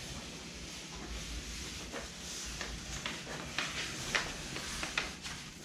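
Paper rustling and crinkling, with a run of short sharp crackles in the second half, as a paper pattern is pressed and creased against a foam kayak hull.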